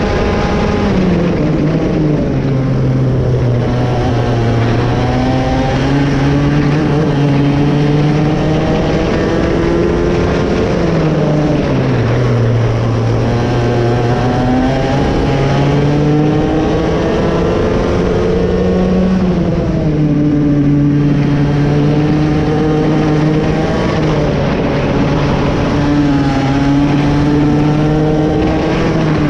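Raket 120 two-stroke kart engine running hard, its pitch dropping as it slows and climbing again, several times over.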